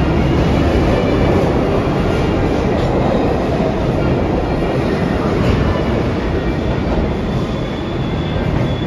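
New York City subway train running on the rails: a steady rumble of wheels and running gear, with faint high-pitched wheel squeal.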